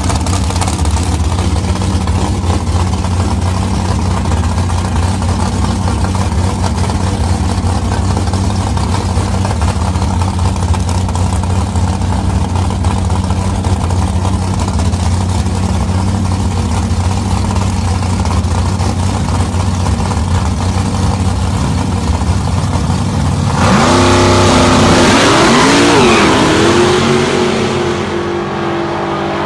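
Two drag cars sitting at the starting line with a steady low engine drone, then launching about 23 seconds in: a sudden loud surge of engine noise with the pitch sweeping up through the gears, fading off as the cars run away down the strip.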